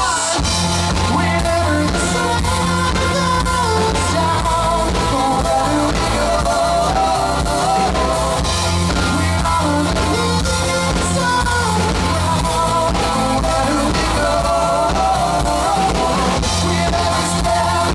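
Live rock band playing, with a man singing lead into a microphone over keyboard and bass guitar.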